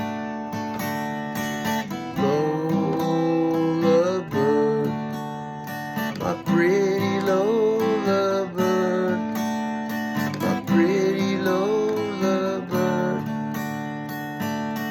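Acoustic guitar strumming chords, with a wavering melody line over it in three phrases of two to three seconds each.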